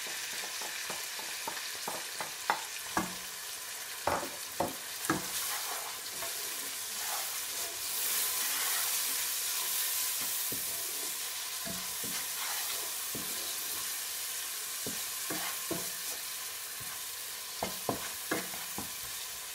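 Onion-and-tomato masala with freshly added ground spices sizzling steadily in hot oil in a non-stick wok, while a wooden spatula stirs it and knocks against the pan now and then. The masala is being fried after the spices go in.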